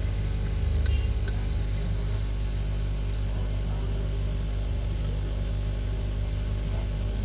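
Steady low hum with a light hiss, typical of a hot air rework station blowing on a phone circuit board to lift an IC, with a few faint ticks about a second in.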